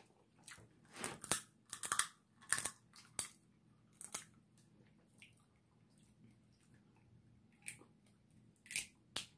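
Snow crab leg shells from a seafood boil being snapped and cracked open by hand, with crunching: a cluster of sharp cracks over a few seconds, a lull, then a few more cracks near the end.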